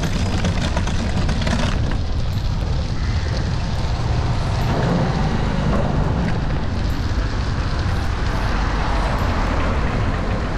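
Wind buffeting an action camera's microphone on a moving bicycle: a steady loud rumble with road noise, and a couple of sharp knocks in the first two seconds.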